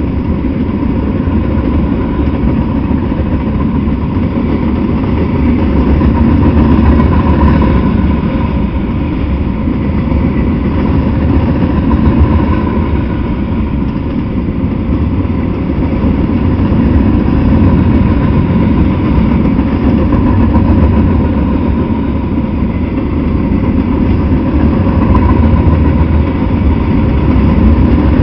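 Freight train of open-top gondola cars rolling past, steel wheels running over the rails in a steady, loud rumble that swells and eases slightly as the cars go by.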